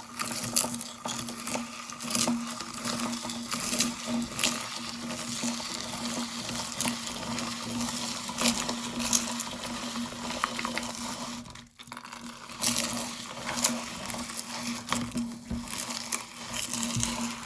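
Electric meat grinder running with a steady motor hum while it crushes crunchy popcorn, giving dense crackling and crunching. There is a brief break just past halfway.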